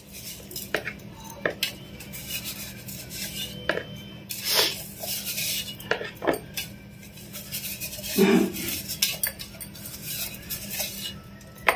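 Stainless-steel tumblers and utensils clinking and knocking now and then, with short scrapes and rustles as salt is scooped by hand out of a steel tumbler. A faint steady hum runs underneath.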